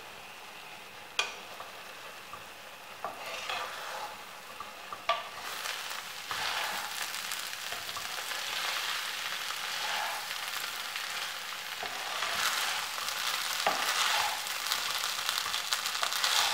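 Wooden spatula stirring and scraping cooked basmati rice in a nonstick pan over the heat, with a light sizzle now that the cooking water has boiled off. A sharp knock about a second in; the stirring turns steady from about five seconds in.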